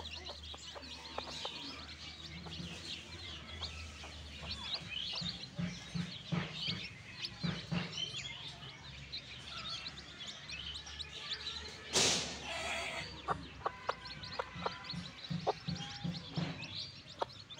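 Baby chicks peeping, many short high chirps overlapping, with a mother hen's low, rapid clucking coming and going. One brief loud rush of noise about two-thirds of the way through.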